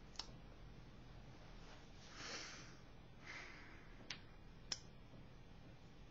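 Three faint sharp clicks in a quiet room: one just after the start, then two close together past the middle, the last the loudest. Between them come two soft hissing swells.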